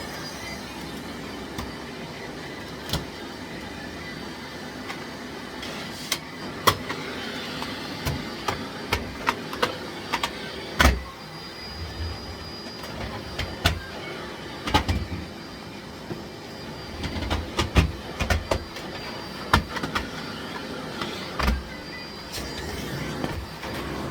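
Miele Blizzard CX1 bagless vacuum cleaner running steadily, with frequent sharp clicks and knocks as it is worked over the floor.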